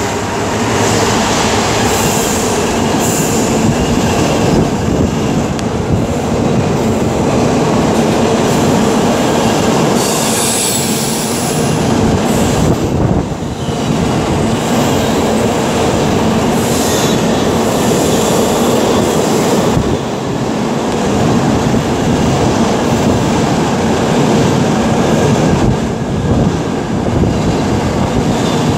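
Freight train of container wagons behind a DRS Class 66 locomotive passing close by: a loud, continuous rumble of wheels on the rails with clickety-clack and some wheel squeal, dipping briefly a few times.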